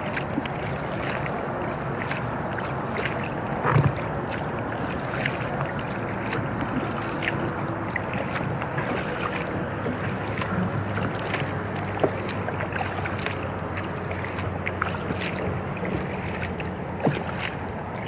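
Inflatable kayak being paddled: paddle splashes and water lapping against the hull, over a steady hum of highway traffic from the bridge ahead. A louder knock comes about four seconds in.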